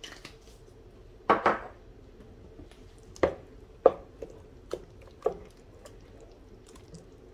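Wooden spoon stirring thick mashed potatoes in a stainless steel pot, clacking against the pot's side. A loud double knock comes about a second in, then single knocks every half second or so until about five seconds in.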